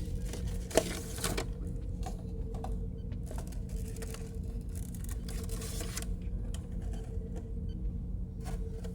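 Light clicks and rustles of a boxed model's cardboard and plastic packaging being handled, the sharpest click about a second in, over a steady low hum.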